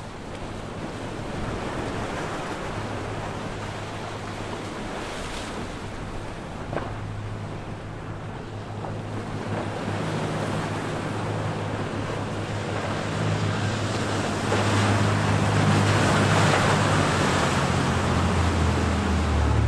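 A large sportfishing yacht's diesel engines drone as it runs toward the camera at speed, growing louder as it nears. Wind and the rush of sea and wake water run under it.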